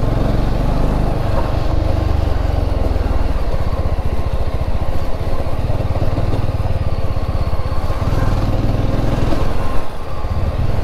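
Yezdi Scrambler's single-cylinder engine running steadily, a rapid low pulsing of its firing strokes.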